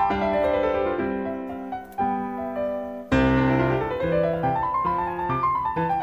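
Background piano music: a melody of separate notes, with a falling run of notes in the first second and a rising run about halfway through.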